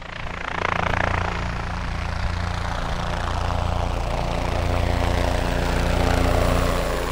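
Helicopter sound effect: a steady low rotor beat and engine hum under a rushing noise that slowly falls in pitch.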